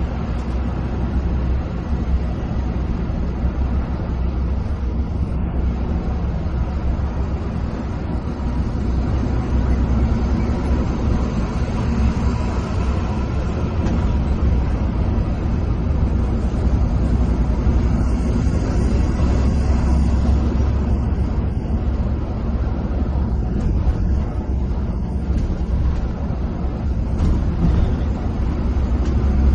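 Coach bus cruising on a highway, heard from inside the driver's cabin: a steady low engine drone mixed with continuous tyre and road rumble.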